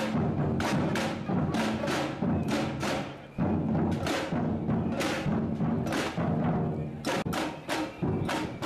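Samba-style street drum band playing: deep bass drums throbbing under sharp stick strokes on small drums, two or three strokes a second in a steady rhythm, with a brief drop a little over three seconds in.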